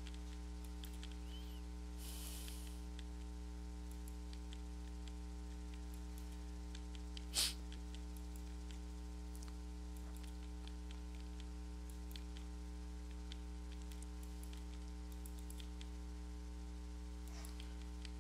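Steady electrical mains hum with a stack of fixed tones, and faint scattered clicks. One sharper click sounds about seven seconds in.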